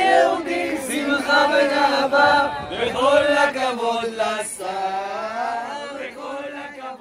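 A group of men and women singing together in unison, a slow, chant-like song, fading out near the end.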